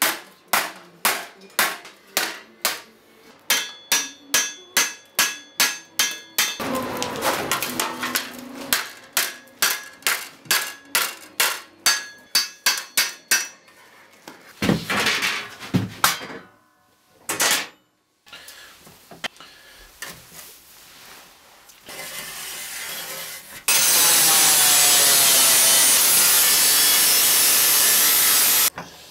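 Hammer blows on a red-hot steel strip over an anvil, about two to three a second with a metallic ring, through the first half. Later an angle grinder cuts steel with a loud steady hiss for about five seconds, stopping just before the end.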